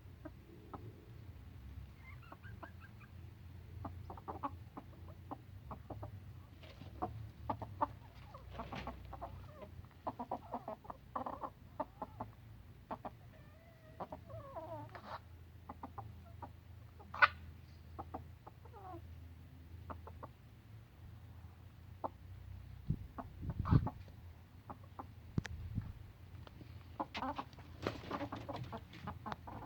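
A hen clucking quietly and making many short, sharp hiccup sounds at irregular intervals. A louder low thump comes about three-quarters of the way through.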